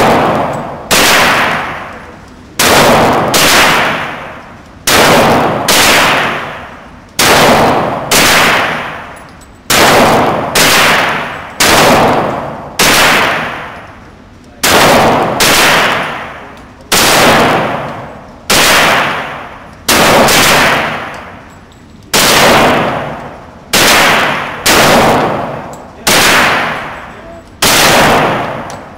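Glock 23 .40 S&W pistol firing a long string of single shots at a steady pace, roughly one a second, each shot followed by a decaying ring.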